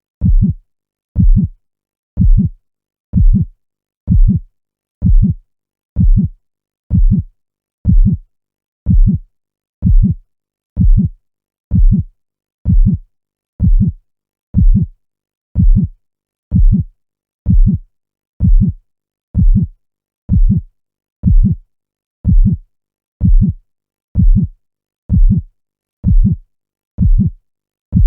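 Heartbeat sound: steady, low thumps about once a second, with silence between beats.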